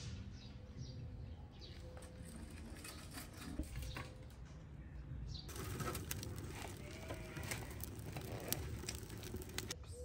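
Birds chirping and calling in the background. About halfway in, a wood fire in a metal stove crackles with many sharp pops and snaps as dry sticks are pushed into it.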